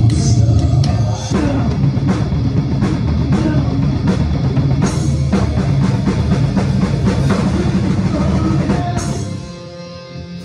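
Rock music with a drum kit played hard: kick and snare under washing cymbals over heavy low-end instruments. The playing stops about nine seconds in, leaving softer sustained notes ringing.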